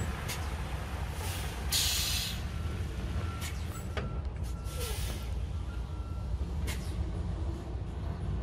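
Diesel lime slurry tanker truck running low and steady as it moves back and forth to empty its trailer, with short hisses of its air brakes about two seconds in and again about five seconds in.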